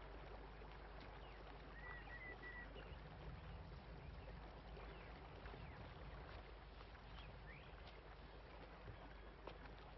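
Faint rural outdoor ambience: a low steady hiss with scattered birdsong, a short warbling phrase about two seconds in and a single rising chirp later on.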